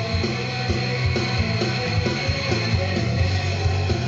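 Rock music with guitar and a heavy, rhythmic bass line, playing from a cassette in the car's tape deck through the car speakers.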